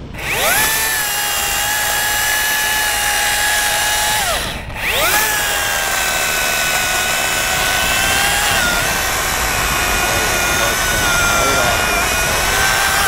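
Chainsaw cutting into a tree top at full speed in two runs. It stops briefly about four and a half seconds in, then restarts and keeps cutting, its pitch sagging a little under load.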